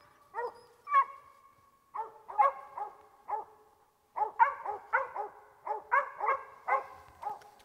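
Mountain cur squirrel dog tree-barking at a treed squirrel: a steady run of short barks, two or three a second, with a brief break a little before halfway.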